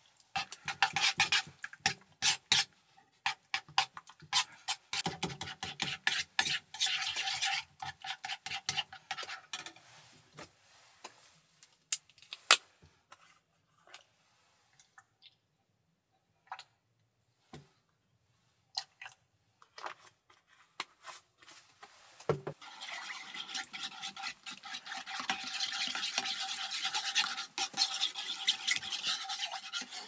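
A plastic spoon scraping and tapping in a small stainless steel pot, working food in quick strokes. Midway it thins to a few scattered taps with one dull knock, then the spoon stirs a milky liquid, scraping the pot steadily.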